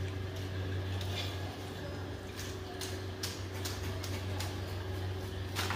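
A steel wire spider strainer scraping and clicking lightly against an iron kadai as the last tapioca chips are scooped from the hot oil, with scattered clicks and a sharper one near the end. The oil sizzles only faintly: the chips are fried crisp. A steady low hum runs underneath.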